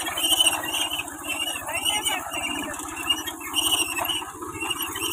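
Tractor engine running steadily with a fast, even low pulse as it pulls a groundnut seed drill through tilled soil, with repeated high-pitched squeals over it.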